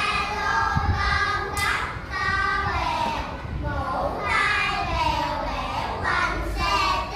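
A child singing in a high voice, phrase after phrase with short breaks between them.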